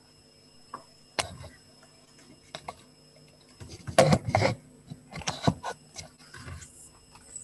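Scattered knocks and clattering handling noises, a few sharp ones about a second in and a louder cluster about four to five and a half seconds in, over a faint steady electrical whine.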